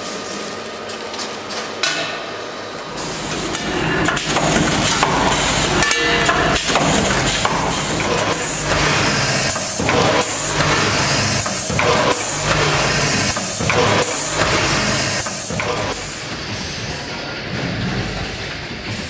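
Produce-packaging machinery running: conveyors and a vertical bagging machine clattering, with a steady mechanical din and repeated sharp knocks about once a second. It gets louder a few seconds in.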